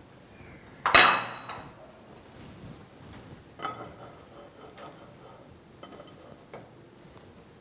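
Kitchen dishes being handled: one sharp, ringing clink about a second in, then several lighter clinks and knocks as small bowls and a frying pan are picked up and moved.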